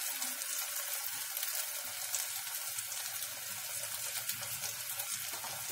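Thick cashew and tomato-onion gravy sizzling steadily in ghee in a kadhai over a low flame: an even hiss with fine crackling.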